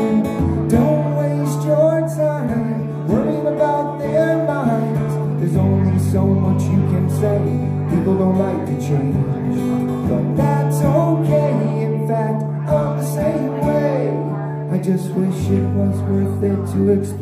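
Acoustic guitar strummed in a steady rhythm, with a man singing over it; the low chord note changes twice.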